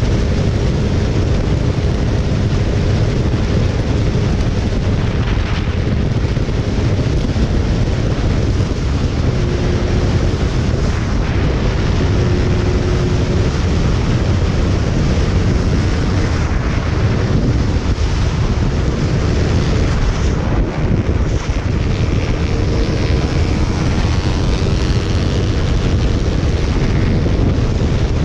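Steady wind rush buffeting the microphone on a moving motorcycle, with the bike's engine running underneath as a faint steady hum.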